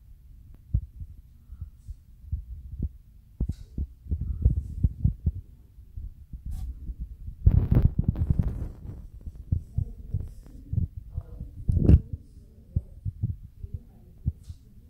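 Irregular low thumps and rumbling, with a louder rush about halfway through and a sharp thump near the end, typical of handling noise on a handheld phone's microphone.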